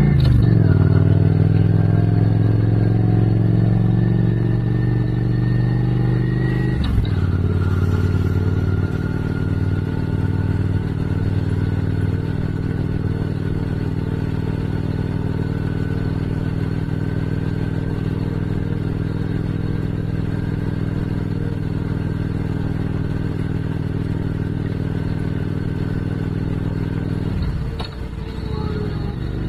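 Motorcycle engine under way, shifting up twice early on: its pitch drops right at the start and again about seven seconds in, climbing after each drop. It then cruises at a nearly steady note. Near the end the engine note dips briefly, then picks up again.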